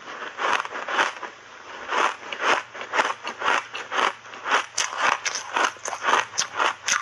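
Chunks of ice coated in matcha powder being chewed with the mouth closed: a quick series of crisp crunches, about two a second, with a short pause near the start.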